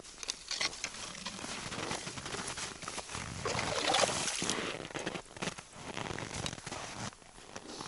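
Hand-cranked ice auger boring through river ice: the blades grind and scrape in uneven strokes as it is turned, loudest about halfway through.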